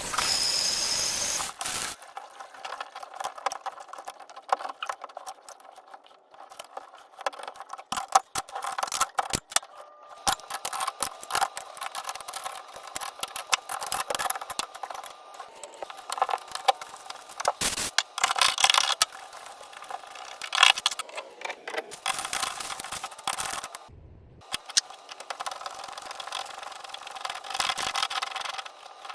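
Hand tools and metal fittings being worked while a bathtub spout is replaced: irregular clicks, scrapes and rattles.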